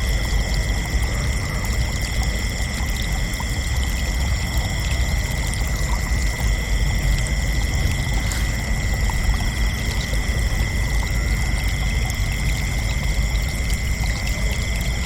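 Crickets chirping in a continuous high trill, with a steady low rushing noise underneath.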